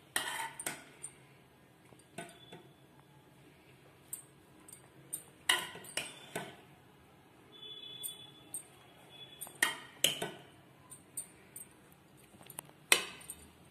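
A metal spoon clinking and knocking against a cooking pot while par-boiled rice is spooned in a layer over chicken, in short clusters of sharp clinks every few seconds.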